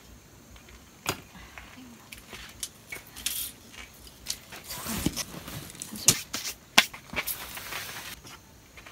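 Objects being handled: irregular clicks, light knocks and short rustles, with two sharper clicks about six and seven seconds in.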